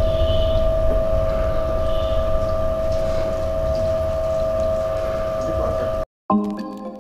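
Motor-driven wood oil press (ganuga) running, a loud steady hum with a low rumble that cuts off abruptly about six seconds in. Plucked background music starts just after the cut.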